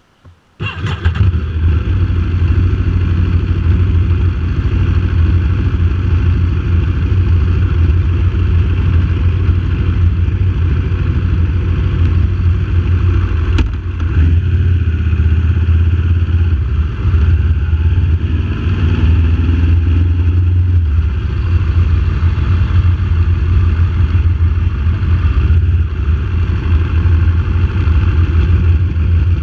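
Aprilia RSV4 APRC's V4 engine starting about half a second in, then running steadily. A single sharp click comes about halfway through, and the engine note rises and falls a little as the bike pulls away and rides off at low speed.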